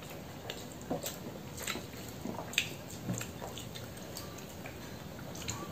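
Faint, scattered small clicks and taps of eating by hand: fingers working rice and curry on a steel plate, and chewing.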